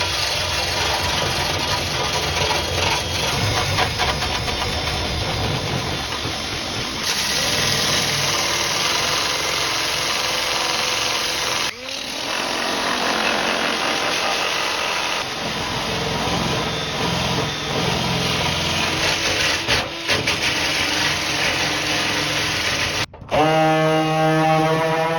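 A motorised tool running steadily, heard in several clips cut together; about two seconds before the end a new, pitched hum with many overtones takes over.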